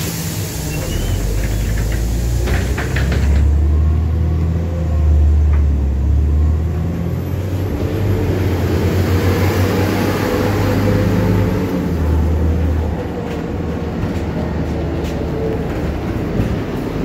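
Inside a NefAZ 5299 city bus: a hiss and a few clunks as the doors close at a stop, then the engine's low drone swells as the bus pulls away and drives on.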